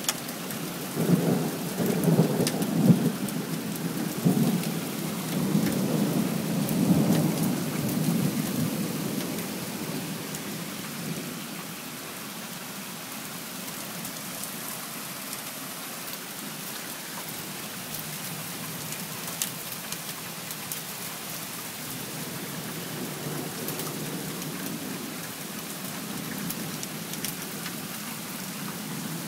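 Thunderstorm: steady heavy rain hissing with thunder rolling overhead. The rumble is strongest in the first several seconds and dies away, then a fainter rumble builds near the end.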